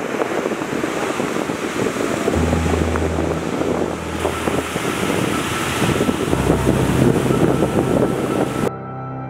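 Ocean surf washing in, with wind buffeting the microphone. Soft, steady ambient music notes come in underneath about two seconds in. Near the end the surf and wind cut off abruptly, leaving only the music.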